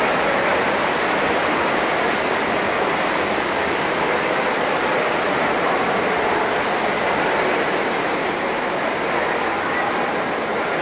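Steady wash of splashing from several backstroke swimmers kicking and stroking down their lanes in an indoor pool hall.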